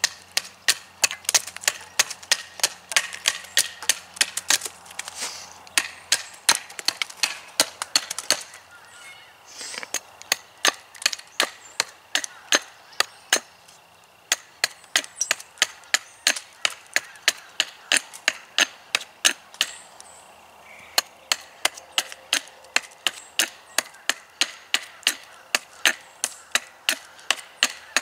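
Small axe chopping into a green wooden log in quick, short, controlled strokes, about three knocks a second with a few brief pauses. These are the scoring cuts (depth lines) made down the log before hewing the chunks off.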